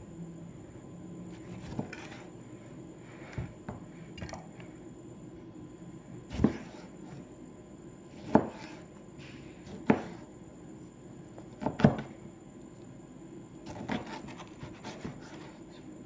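Knife cutting tomatoes on a cutting board: irregular sharp knocks of the blade on the board, the loudest four coming a second or two apart through the middle, with fainter knocks and rubbing between.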